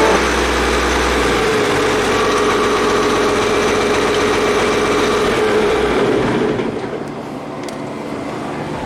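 Hay baler and the engine driving it running steadily, then the noise drops off about six and a half seconds in as the machine winds down.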